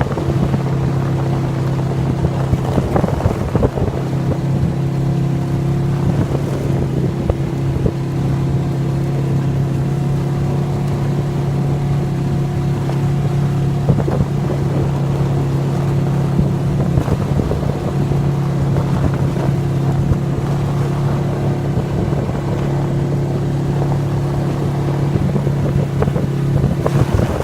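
ATV engine running at a steady speed while being ridden, its pitch holding level throughout.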